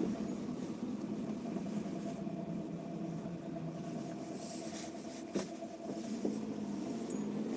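Car engine and tyre noise heard inside the cabin while driving on a wet road: a steady hum, with a couple of faint clicks about five and six seconds in.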